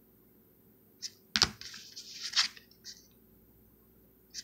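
A rigid plastic toploader holding a trading card handled and turned over in the fingers: a sharp plastic click about a second and a half in, a brief scraping rustle, and a few light ticks.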